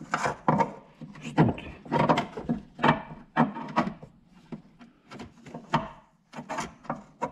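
A 10 mm wrench working the nut on a car battery's negative terminal clamp, and the clamp being worked loose on the post: irregular short metal scrapes and knocks, about two a second. This is the battery being disconnected.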